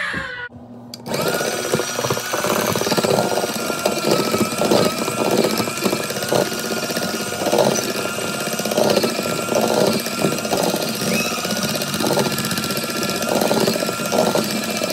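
Electric hand mixer running steadily with a constant whine as it beats cupcake batter. It starts about a second in and cuts off at the end.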